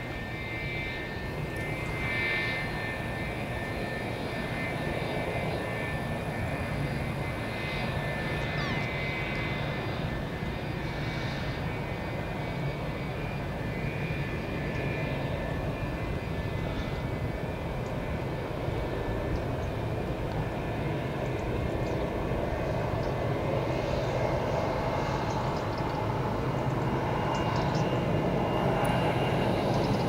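The twin rear-mounted JT8D turbofans of a McDonnell Douglas MD-87 running at low power as the jet taxis on the ground. It is a steady jet rumble with a thin high whine, growing a little louder near the end.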